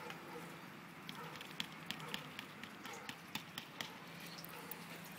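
Faint handling noise: scattered light ticks and crackles, several a second, over a low hiss.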